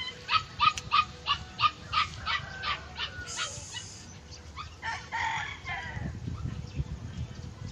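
A dog yapping in quick repeated barks, about three a second, which stop a little under three seconds in. Then a rooster crows once, for about a second, around five seconds in.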